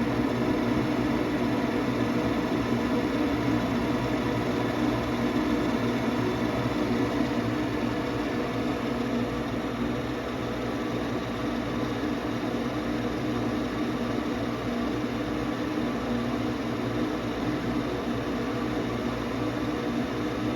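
Gas furnace draft inducer motor running at the start of the ignition sequence, a steady hum with a few fixed tones, waiting before the hot surface igniter switches on. The furnace has an intermittent ignition fault.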